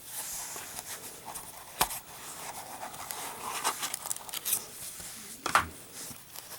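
Packaging of a boxed lighter being handled and opened: rustling and scraping, with two sharp clicks.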